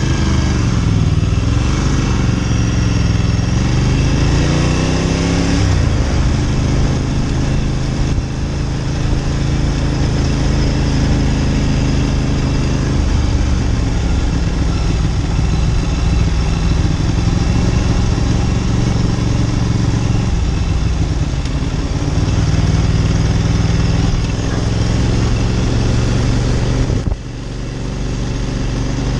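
Ducati Monster 900's air-cooled V-twin engine running while the bike is ridden. Its revs rise and fall over the first few seconds, then hold fairly steady, and its sound dips briefly near the end.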